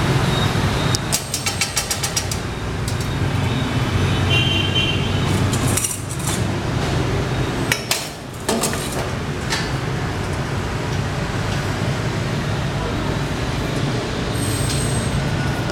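Steady low hum of background noise, with a quick run of clicks about a second in and a few scattered clicks and clinks later.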